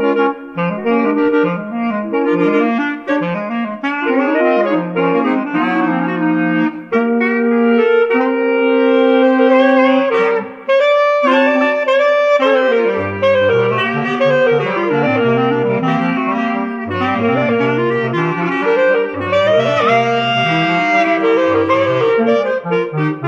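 Clarinet quartet playing a jazz tune in four-part harmony. A held chord comes about halfway, then the bass part moves down into a low register.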